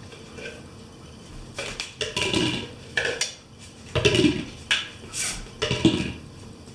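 Hard objects clattering: a run of knocks and rattles, several in quick groups, starting about a second and a half in and stopping a little before the end.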